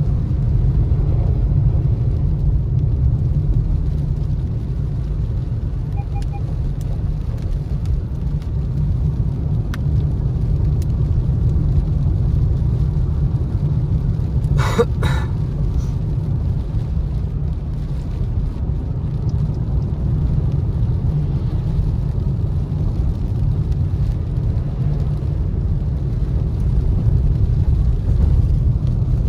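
Road noise inside a car driving on a rain-soaked road: a steady low rumble of engine and tyres on wet pavement. A brief higher-pitched sound comes about halfway through.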